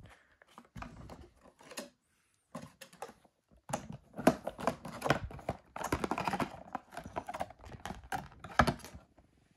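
Hands handling a clear plastic packaging box and a cardboard insert, making a run of crackling, clicking plastic rattles. There is a short patch in the first couple of seconds and a busier stretch from the middle to near the end.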